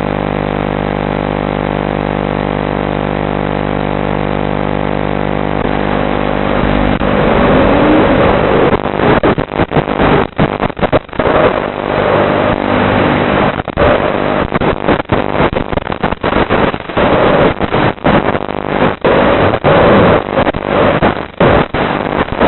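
Racing quadcopter drones' electric motors: a steady whine of several tones at first. About seven seconds in they rise in pitch and grow much louder, and the sound turns choppy with many brief, irregular drop-outs.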